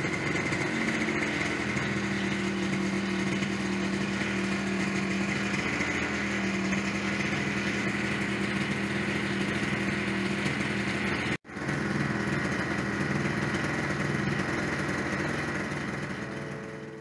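Yamaha Aerox 50cc scooter engine idling steadily. The sound cuts out for an instant partway through and fades away near the end.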